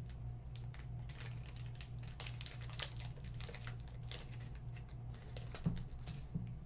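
Irregular rustling, crinkling and light clicks of packaging and cards being handled, with two short knocks near the end, over a steady low electrical hum.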